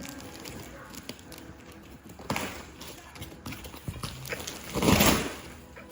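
A cardboard parcel being unpacked: scattered knocks and rustles of packaging being handled, with a louder rustle or scrape lasting about half a second near the end.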